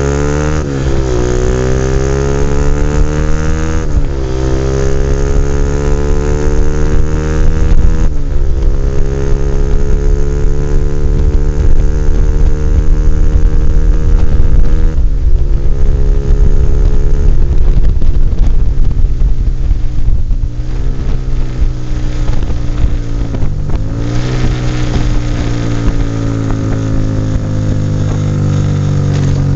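Honda CBR 150R's single-cylinder engine running through an NJT Racing tri-oval exhaust with the DB killer removed, under way on the road. The revs climb and drop sharply at each gear change, about six times, then hold and ease off in the last part.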